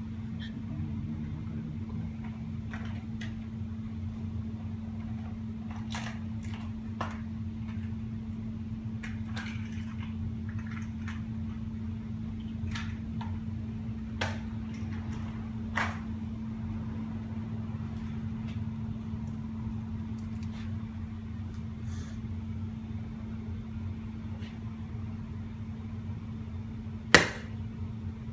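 A steady low hum with scattered faint ticks and clicks, then one sharp click near the end as a hand takes hold of the windshield chip-repair bridge.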